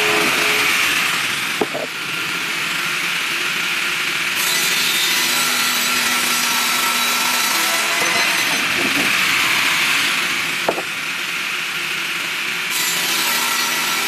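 Small log sawmill's electric-driven circular saw blade ripping through a log, a loud steady whining rasp. The sound shifts twice, each time right after a sharp knock.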